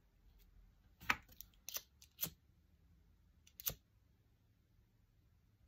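Disposable lighter flicked several times, with a handful of sharp clicks between about one and four seconds in, as it is lit to burn a sage bundle.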